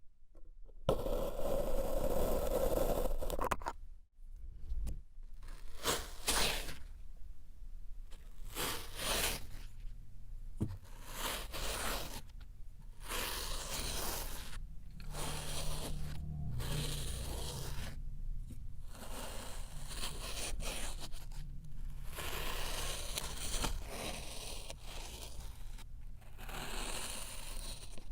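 Kinetic sand being squished and cut by hand: a long series of scraping, tearing strokes of a second or two each, with short pauses between them.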